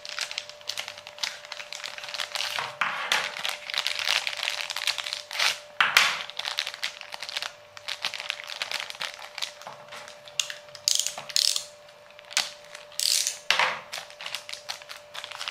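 Plastic antenna bags crinkling and rustling while router antennas are unwrapped and handled, with rapid, irregular ratchet-like clicking, typical of the antennas' jointed hinges being flexed through their detents.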